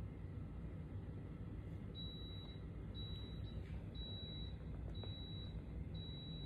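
Electronic beeper sounding a single high tone about once a second, five beeps beginning about two seconds in, over a low steady background noise.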